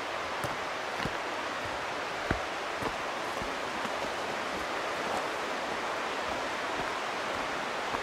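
Steady rush of the fast-flowing Middle Fork Snoqualmie River, with soft irregular footsteps on a dirt trail through brush.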